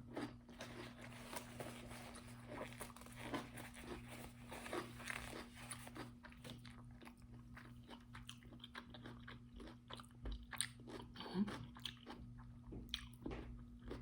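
A person chewing and biting food close to the microphone, with many short irregular crunches: a mouthful of cucumber, sausage and rice being eaten.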